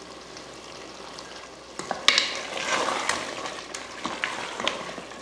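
Chicken masala sizzling in a pressure cooker. About two seconds in, a spatula starts stirring it, scraping and clicking against the pot.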